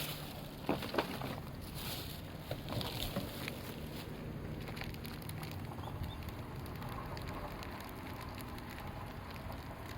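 Wood fire burning, with a few sharp crackles and pops in the first three seconds over a steady hiss.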